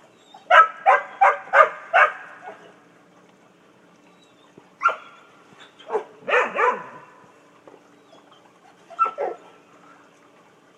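Dogs barking at a Polaris pool cleaner. A quick run of five barks comes first, about three a second; a single bark follows, then a short cluster of three, and near the end a couple more.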